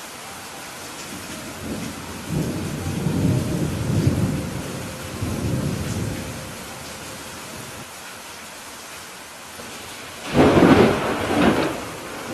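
Thunderstorm: steady rain hiss, with a low rolling rumble of thunder from about two to six seconds in, then a louder, sharper thunderclap starting suddenly near the end.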